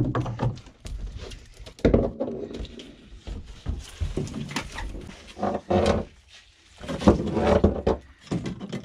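A dogfish thrashing and slapping on a fibreglass boat deck, giving repeated sharp knocks and slaps as it writhes and is grabbed for unhooking, with a few short grunt-like sounds mixed in.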